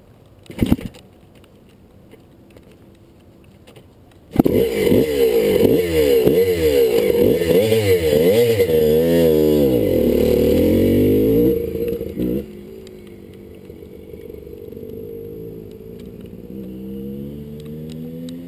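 A single sharp knock about a second in. About four seconds in, a Kawasaki KDX200's two-stroke single-cylinder dirt-bike engine comes in loud, revving up and down again and again. It then drops to a quieter, steadier running, with the revs climbing again near the end.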